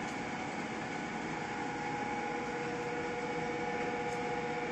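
YX-400 ring-bending machine running, its drive motor and rollers giving a steady hum with a few steady whining tones as a metal tube is rolled into a ring.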